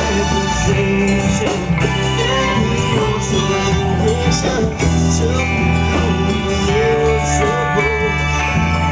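Live band playing amplified country-style music through outdoor PA speakers, an electric guitar melody over a steady bass line.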